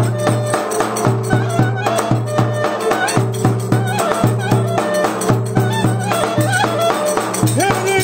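Turkish folk dance music: a davul bass drum beaten with a stick at a steady beat, under a wavering clarinet melody.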